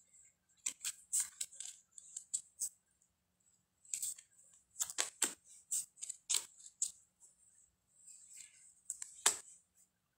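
Tarot cards being handled and flipped: a series of short crisp card-stock slides, flicks and taps in two clusters, then a softer swish and one firmer tap near the end.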